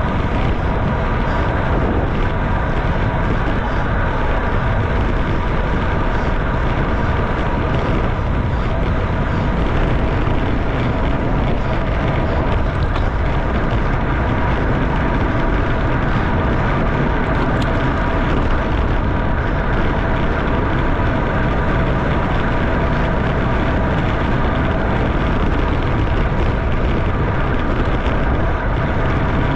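Steady rush of wind over the microphone of a bicycle-mounted camera during a race at about 27 mph, with a few faint steady tones under it.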